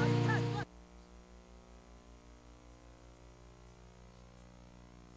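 Background music cuts off abruptly under a second in, leaving only a faint, steady low hum.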